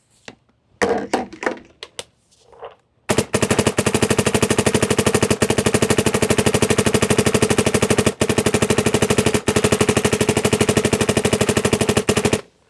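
Dye MXR paintball marker firing a long, rapid, unbroken stream of shots on compressed air for about nine seconds, with a few split-second breaks, as a full pod of paintballs is shot through the gun. The stream starts about three seconds in and cuts off just before the end.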